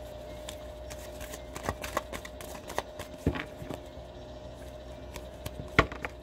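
Tarot cards being handled and shuffled on a table: scattered light taps and flicks, the loudest a little before the end, over a faint steady hum.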